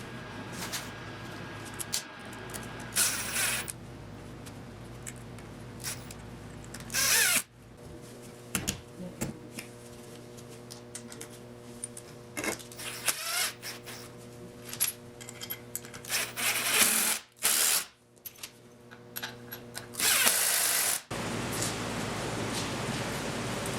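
Handheld power drill run in short bursts, about four times, with clicks and clatter of tools between the runs.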